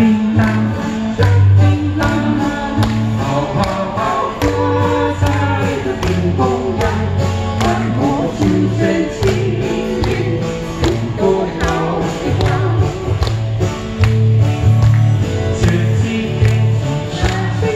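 A live singer, amplified through a PA, performing a Chinese folk-song medley over backing music with a steady beat and bass.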